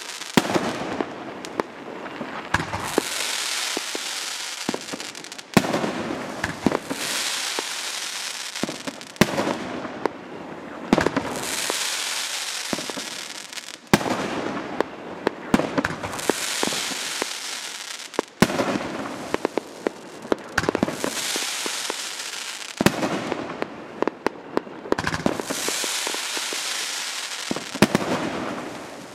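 Nine-shot consumer fireworks cake firing shot after shot, every two to four seconds. Each shot is a sharp bang followed by a few seconds of hissing and crackling as the willow and colour stars burn and fall.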